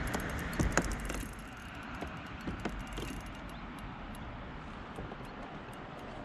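Fishing reel winding in a hooked bream: a run of light mechanical clicking and ticking, with a few sharper knocks about a second in and again near three seconds, over a steady hiss.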